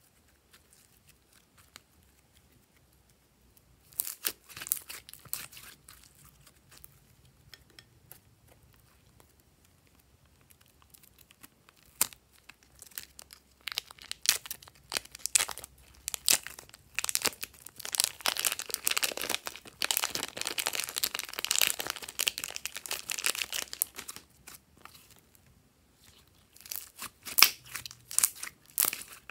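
Hands squeezing and pulling apart a purple slime-filled plastic piping bag, the plastic crinkling and tearing with wet, crackly squishing of the slime, in bursts with quiet pauses between. The densest crinkling runs through the middle, and short crackly squishes of kneaded slime come near the end.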